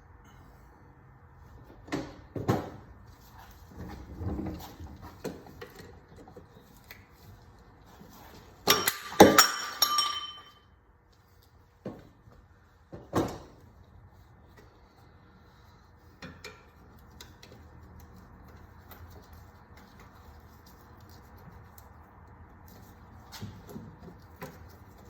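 Metal hand tools clinking and clanking as they are handled, in scattered knocks, with a loud ringing metallic clatter about nine seconds in.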